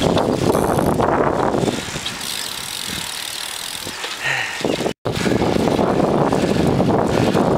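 Wind rushing over the microphone of a camera carried on a moving road bicycle, mixed with tyre and road noise. The rush eases for a couple of seconds in the middle, drops out for an instant about five seconds in, then comes back loud.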